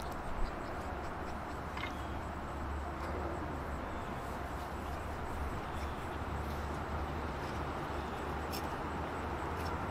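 Steady outdoor background noise with a low rumble, and a few faint clicks.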